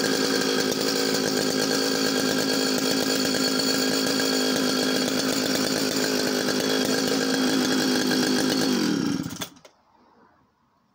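Echo CS-650EVL two-stroke chainsaw engine running at a steady speed, then slowing with falling pitch and cutting out near the end as it runs out of fuel.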